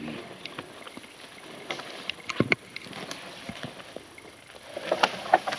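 Dry wood and twigs snapping and crackling with rustling, as firewood is gathered and handled. The snaps are irregular, with the loudest about two and a half seconds in and a cluster near the end.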